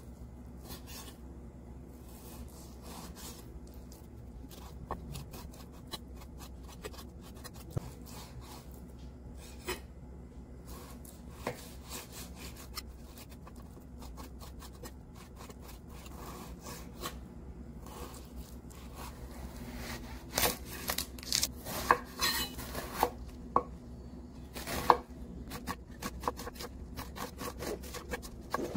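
Kitchen knife cutting on a wooden cutting board, slicing raw pork into cubes and later dicing an onion: irregular taps of the blade on the board, louder and quicker about two-thirds of the way through.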